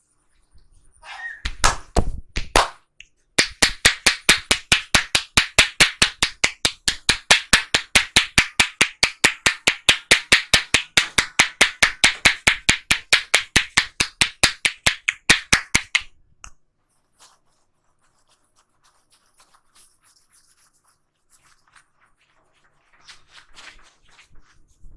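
Massage hand tapping on the head: a short cluster of slaps, then a long, even run of loud sharp taps at about four a second that stops suddenly, followed by faint rubbing.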